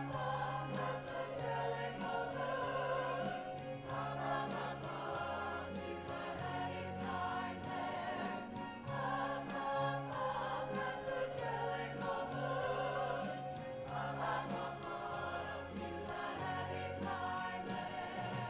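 Musical-theatre cast singing in chorus over instrumental accompaniment, with sustained chords and a bass line that moves every second or two.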